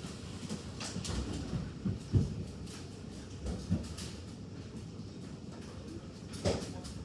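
Large hailstones striking hard surfaces now and then, giving irregular knocks and thuds over a low rumble of storm noise. The heaviest thuds come about two seconds in, again around three and a half, and near the end.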